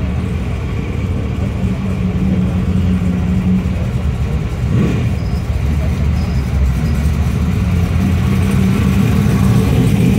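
Car engine running at low revs, a steady low rumble that grows louder toward the end as a car approaches, with a brief rise and fall in pitch about five seconds in.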